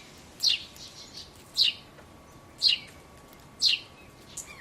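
A bird chirping: five short, quickly falling chirps, about one a second.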